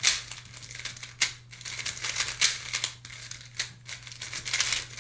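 Tornado V3 Flagship magnetic speedcube being turned quickly by hand: irregular rapid plastic clicks and clacks of the layers snapping into place, over a faint steady hum.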